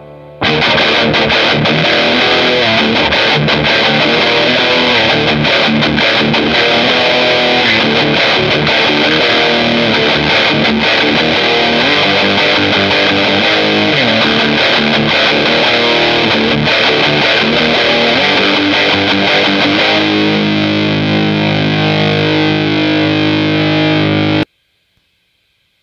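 Electric guitar with a Seymour Duncan Custom 5 bridge humbucker, tuned to D standard, playing distorted riffs through a Crate GX-30M amp with a Celestion V30 speaker. Near the end a chord is held ringing for about four seconds, then it cuts off suddenly.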